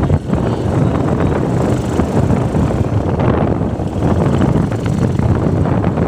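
Wind buffeting the microphone over a steady low rumble, like a moving vehicle.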